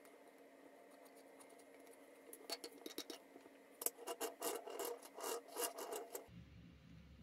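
Wooden toy car parts clicking and rubbing as they are handled: the body pressed onto the wheeled chassis and the car set down and turned on a tabletop. An irregular run of small knocks and scrapes lasts about four seconds, then cuts off suddenly.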